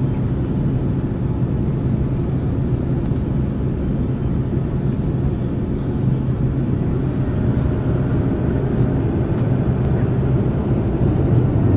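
Steady cabin noise of an Airbus A330-300 airliner in flight: a low engine and airflow roar with a steady hum underneath, heard from inside the passenger cabin.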